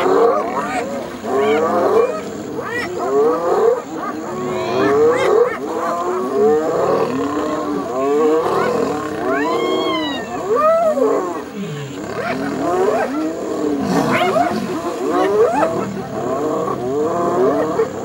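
Spotted hyenas and lions in a confrontation: a loud, continuous din of many overlapping animal calls, several a second, rising and falling sharply in pitch, with now and then a call climbing much higher.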